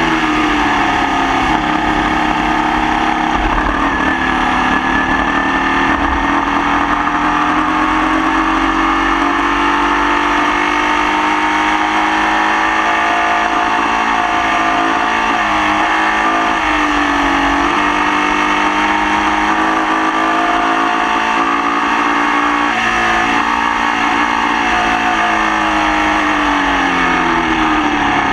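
Formula Vee race car's air-cooled Volkswagen flat-four heard onboard, pulling hard under load. Its note climbs early, holds high with a couple of brief dips around the middle, then falls away near the end. The car ran the whole race with a nasty misfire.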